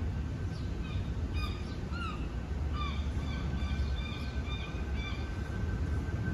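Birds chirping in short, quickly repeated notes for a few seconds, over the steady low rumble of a jet airliner passing overhead.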